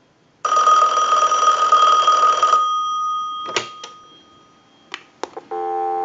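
Western Electric 2565 desk telephone's bell ringing for about two seconds on a ring cycle, then ringing out. The handset comes off the hook with a clack, a few clicks follow, and steady dial tone comes on near the end.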